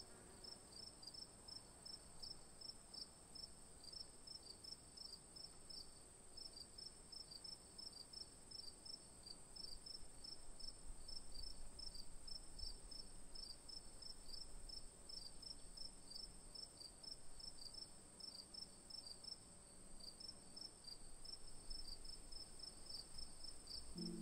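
Faint insect chirping: quick, regular trains of high-pitched pulses with short pauses between them, over a steady high-pitched whine.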